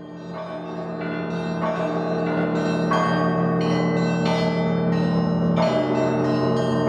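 Church bells ringing, with strokes of several pitches about every half second over a sustained hum, fading in over the first couple of seconds.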